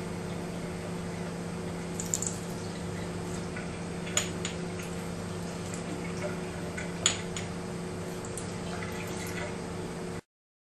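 Kitchen tap running a thin stream of water into a stainless steel sink, a steady splashing hiss over a low hum. Sharp clicks stand out three times, about two, four and seven seconds in.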